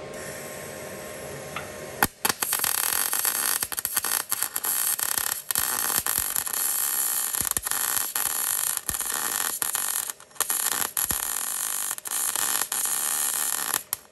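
MIG welder arc crackling and sizzling as it lays stitch welds on steel plate. It strikes about two seconds in and runs in several bursts with short breaks between trigger pulls, then stops just before the end.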